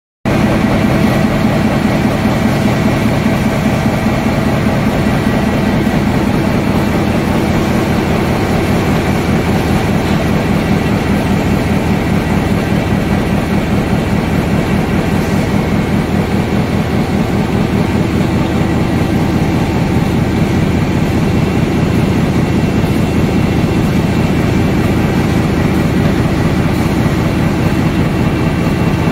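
Dinglong flexo folder gluer box-making machine running steadily while feeding corrugated sheets: a loud, even mechanical din with a fast rhythmic clatter and a steady hum.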